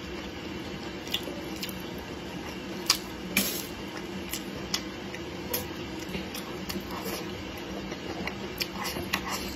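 Close-miked eating sounds: wet chewing of cured pork and green peppers, with sharp clicks of wooden chopsticks against a ceramic plate every second or so. A steady low hum runs underneath.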